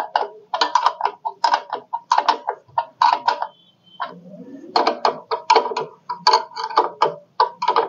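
Ratchet wrench clicking in short runs of two or three clicks as the bolts of a headlight mount are tightened, with a pause of about a second midway.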